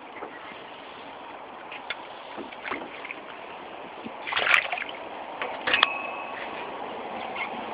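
Water splashing and sloshing, with louder splashes about four and a half and six seconds in.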